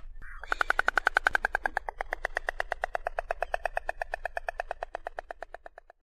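White storks clattering their bills: a fast, even rattle of about ten knocks a second. It starts after a brief pause about half a second in, is loudest soon after, and fades toward the end.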